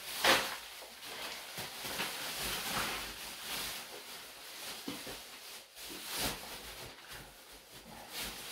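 Broken lath-and-plaster rubble dropped into a black plastic bin bag, loudest just after the start, then the plastic bag rustling as it is handled and tied shut.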